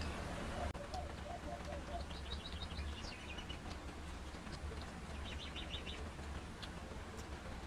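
A small bird chirps in two quick trills of about five notes each, a couple of seconds in and again about five seconds in. Under it come soft clicks of fingers mixing rice on steel plates, and a steady low hum.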